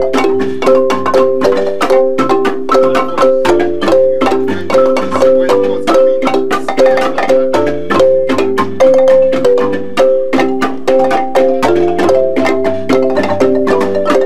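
Ensemble of Zimbabwe-style wooden marimbas played with mallets: a fast, repeating pattern of struck notes over low bass marimba notes, with no break.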